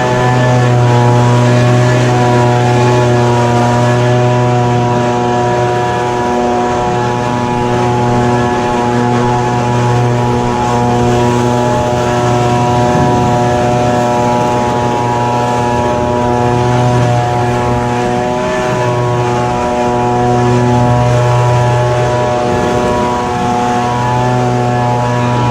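Echo PB-2520 handheld leaf blower's small two-stroke engine running at steady high throttle, with the rush of air from the blower tube. Its pitch dips briefly a few times.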